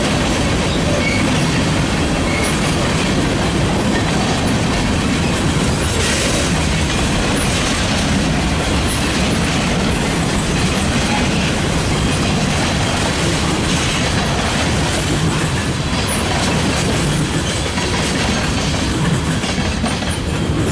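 Freight cars of a mixed train (tank cars, covered hoppers, boxcars) rolling past close by: a steady, loud rumble of steel wheels on the rails with wheel clatter over the rail joints.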